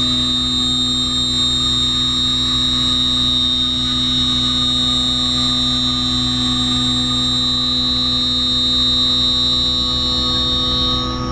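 Haas VF-4 CNC vertical milling machine cutting metal with a spinning end mill: a loud, steady, high-pitched cutting whine over the machine's lower hum. The whine cuts off near the end.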